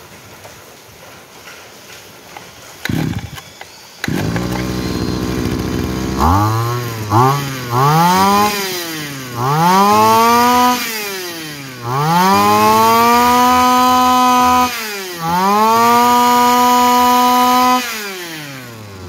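Komatsu G2D two-stroke brush-cutter engine, about 26 cc, starting up about four seconds in. It is then revved by hand at the throttle: a few quick blips, then three longer revs held high and let fall back, dropping toward idle near the end.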